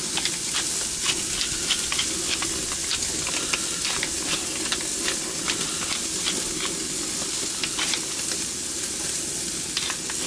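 New York strip steaks sizzling steadily on a hot gas grill, with frequent small crackles and pops from the fat.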